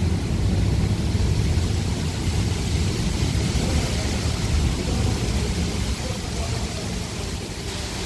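An approaching summer thunderstorm: a steady low rumble with a hiss of wind and rain over it.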